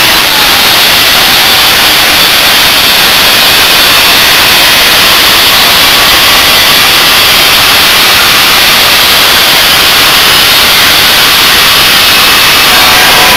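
Power tool cutting through metal: a very loud, steady, hissing grind with no break.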